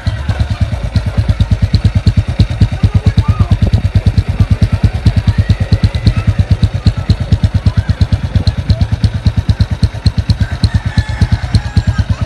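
Honda RS125 Fi single-cylinder four-stroke idling steadily through an aftermarket Apido exhaust pipe with silencer, an even, rapid exhaust putter. Background music plays faintly underneath.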